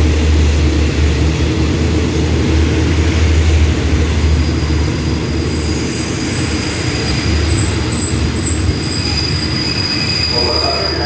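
Passenger carriages of an express train rolling past the platform with a heavy low rumble, slowing to stop. About four seconds in a steady high braking squeal sets in and holds as the rumble dies away.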